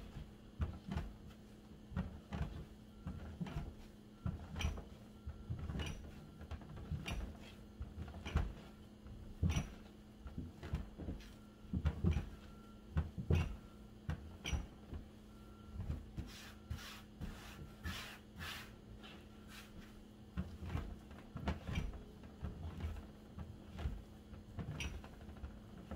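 Bread dough being kneaded by hand on a silicone baking mat on a countertop: irregular dull thumps and knocks, roughly one a second, as the dough is pushed and folded, over a steady low hum.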